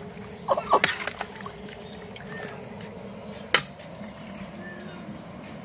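Long metal ladle working in a large aluminium pot of steaming water: a short laugh about half a second in, then one sharp clank of the ladle against the pot about three and a half seconds in, over a steady low hum.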